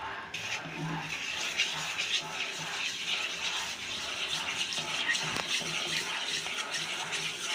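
A wooden spatula stirs a watery mix of rice flour, gram flour and water in a nonstick kadhai, a continuous wet swishing and scraping against the pan.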